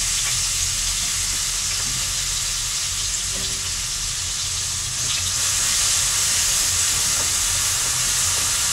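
Chopped onion and ginger sizzling in hot oil in a kadai: a loud, steady frying hiss that grows a little louder about five seconds in.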